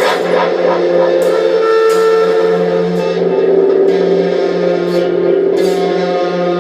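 Music: held, sustained instrumental notes that change pitch a couple of times, with a few sharp clicks over them.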